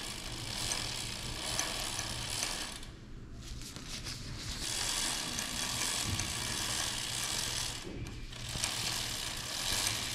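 Bicycle rear hub freehub ratcheting in a fast, rapid clicking while the drivetrain turns and a rag is held against the rear derailleur's pulley wheels to clean off grime. It comes in three spells, with short breaks about three and eight seconds in.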